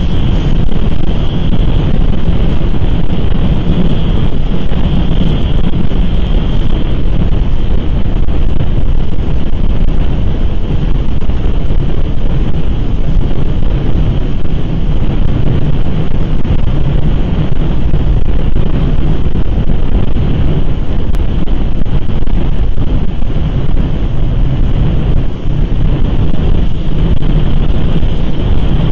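Loud, steady wind noise buffeting the nest camera's microphone, a continuous low rumble with a hiss above it.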